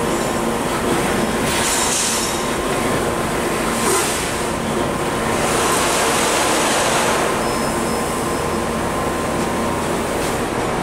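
Bodor T6A fiber laser tube cutter working on a square carbon-steel tube: a steady machine hum with several swells of high hissing cutting noise, the longest from about five and a half to seven and a half seconds in.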